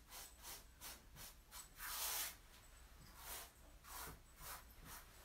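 Paintbrush strokes working a gritty stone-fleck coating onto a laminate countertop: a run of quick, faint brushing rasps, the strongest about two seconds in.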